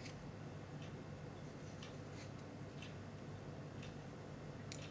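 Faint, irregular light ticks and taps, roughly one a second, from a ballpoint pen working on a wooden accordion reed block and the reeds set in it, over a low steady hum.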